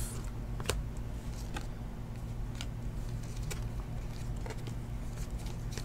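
Trading cards being flicked through one at a time in the hand: a faint click about once a second, over a steady low hum.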